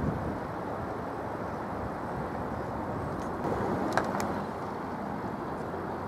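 Steady rumble of distant vehicles, with no clear rise or fall, and a sharp click about four seconds in.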